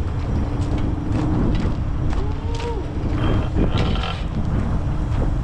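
Rail bike, a bicycle with a front rail guide and an outrigger wheel, rolling along a steel rail: a steady rumble from the wheels with sharp clicks and rattles as it runs over the track. A short squeak comes about halfway through, and there is wind on the microphone.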